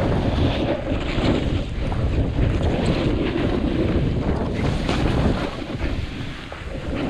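Wind rushing over the GoPro Hero7 Black's microphone, mixed with the snowboard sliding and carving through soft snow at speed. The noise swells and eases, dipping a little after six seconds.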